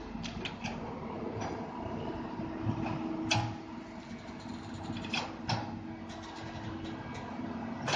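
Komatsu PC200 hydraulic excavator's diesel engine running under load with a steady hum as it digs mud. Sharp clanks come several times, the loudest about three seconds in.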